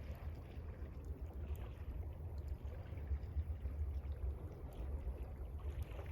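Gentle water lapping over a steady low rumble, with a few faint crackles from a campfire.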